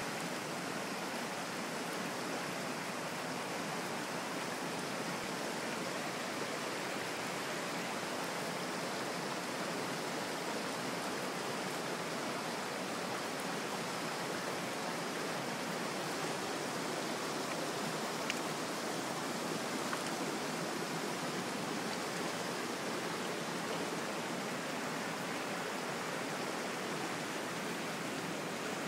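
Mountain stream rushing over rocks: a steady, even wash of flowing water. Two small ticks stand out about two-thirds of the way through.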